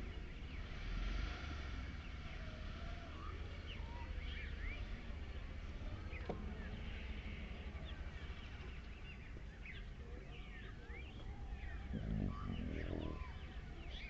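Many small birds chirping and calling over a steady low rumble of outdoor ambience, with a brief louder, lower call about twelve seconds in.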